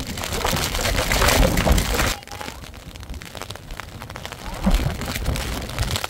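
Strong wind gusting and buffeting the microphone, loudest over the first two seconds and then easing off.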